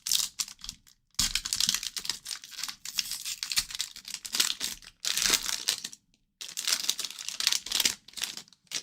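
The wrapper of an O-Pee-Chee hockey card pack being crinkled and torn open, in three long bouts of crackling with brief pauses.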